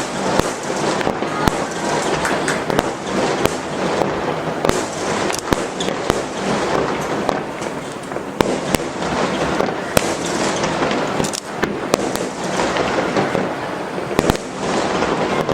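Aerial fireworks in a finale barrage: many sharp bangs in quick succession over a continuous dense noise of bursting shells.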